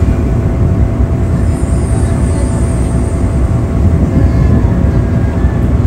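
Steady loud rumble of a small car ferry under way, the drone of its Daihatsu main diesel engine mixed with rough wind noise on the microphone, with a faint steady hum above it.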